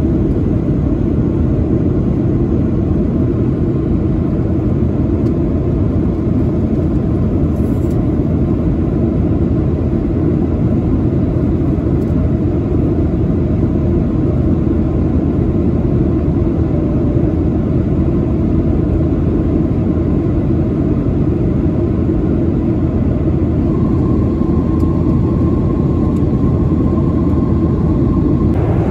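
Steady rumble of a Boeing 737-900 in flight, its CFM56 turbofan engines and the airflow heard from inside the passenger cabin. A faint steady high tone joins near the end.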